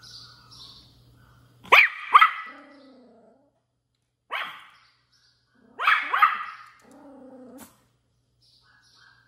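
Pomeranian puppy barking in high yaps, about five in three short bursts, the first and last bursts each followed by a brief whine, as it begs for the kittens' food.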